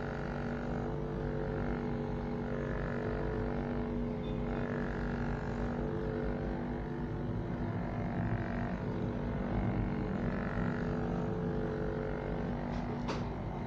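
Vibracussor percussion therapy device running with a steady electric motor hum as it is worked over the knee. A brief sharp click near the end.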